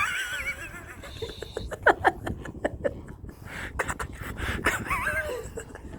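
Flamingos in a flock calling: short goose-like honks and wavering, gabbling cries, several in quick succession.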